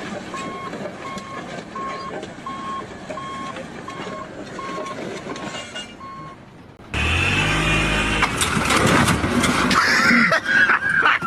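A heavy vehicle's reversing alarm beeps evenly, about three beeps every two seconds, over engine noise. The beeping stops about six seconds in. A second later a much louder, deep engine rumble starts suddenly.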